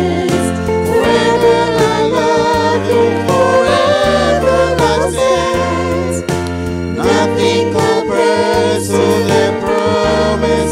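Christian worship song sung by a small group of singers together, over instrumental accompaniment with held bass notes that change every second or two.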